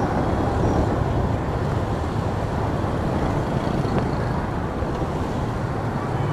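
Steady rushing and rumbling of a moving motorbike in heavy scooter traffic, heard through the bike's forward motion: wind and engine noise with the surrounding traffic, even throughout.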